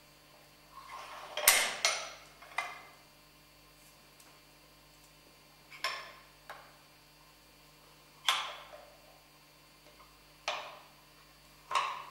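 Metal letterpress furniture blocks being set down and pushed into place inside a chase around the type: about eight sharp metallic clacks at irregular gaps, a brief scraping shuffle before the loudest one.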